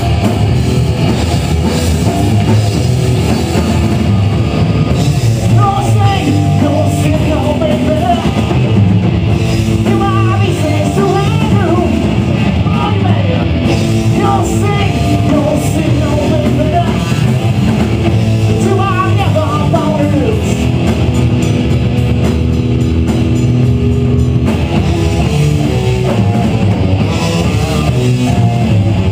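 Loud live rock band playing: electric guitars and drum kit, with a singer's vocals through much of the middle.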